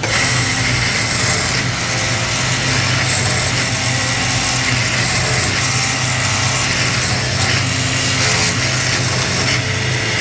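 Woodworking machine running steadily: a low motor hum under a rough, high-pitched whir, starting suddenly.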